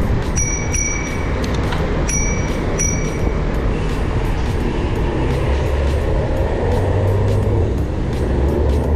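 City traffic noise with wind rushing over a bike-mounted action camera, a heavy vehicle rumbling past in the second half. Twice in the first three seconds comes a short burst of high beeping.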